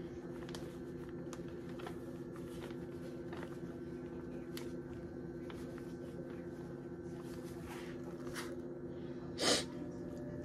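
Steady low hum in a small kitchen, with faint plastic crinkles and ticks from a gloved hand in a zip-top bag of flour. About nine and a half seconds in comes a short, sharp sniff, the loudest sound here.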